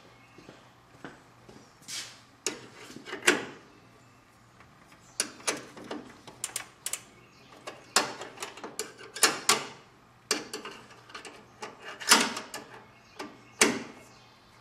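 Hand wrenches clicking and clanking against a nut, bolt and the metal mounting bracket as a nut is tightened, in irregular sharp knocks.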